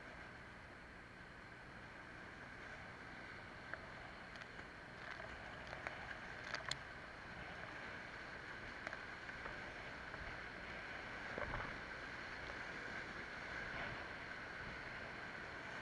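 Whitewater rapids rushing steadily past a kayak at water level, growing a little louder in the second half, with a few short sharp splashes from paddle strokes and choppy water.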